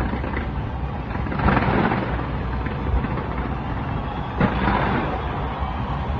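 Fireworks bursting in a continuous barrage over a steady low rumble, with heavier bangs about a second and a half in and again past four seconds.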